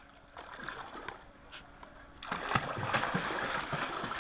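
Water splashing in a swimming pool as a child pushes off from the edge and swims. The first two seconds are fairly quiet with a few small laps and drips, then a continuous irregular churn of splashing starts.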